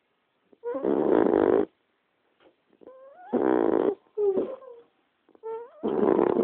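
Small dog snoring in its sleep: three loud, rasping snores about two and a half seconds apart, with short faint pitched sounds between them.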